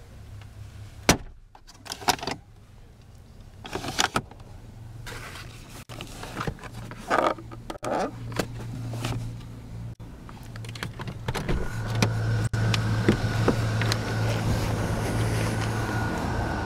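Plastic interior parts of a 1992 Chevrolet Cavalier being handled, a series of sharp clicks and knocks as the glove box door is opened and the sun visor with its vanity mirror is flipped down. Underneath runs a steady low hum that grows louder about two-thirds of the way through.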